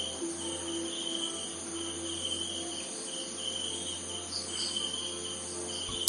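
Crickets chirping in a steady, evenly pulsing chorus, with a low hum underneath.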